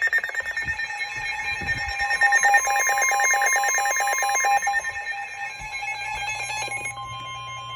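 Electronic emergency alert tones: several overlapping alarm tones pulsing rapidly, then about seven seconds in a steady tone near 1 kHz begins. This is the weather-radio warning alarm that comes before a new severe thunderstorm warning is read out.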